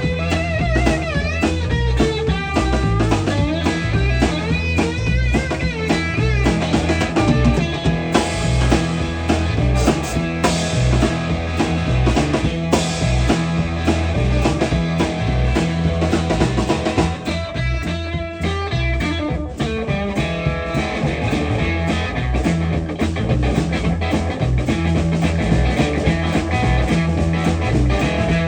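A live band trio playing an instrumental passage: guitar over bass and a drum kit, with wavering, bent guitar notes in the first few seconds.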